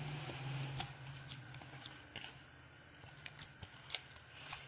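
Fist punching and kneading stiff semolina dough in a stainless steel bowl: soft squishing with scattered faint clicks and taps. A low steady hum is there at first and fades about a second in.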